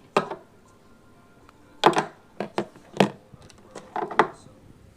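A series of sharp knocks and clicks at irregular intervals, about seven in all, the loudest near two and three seconds in.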